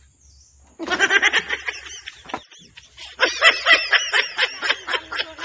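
A girl's high voice talking and giggling, starting about a second in after a brief pause, with a second longer stretch from about three seconds in.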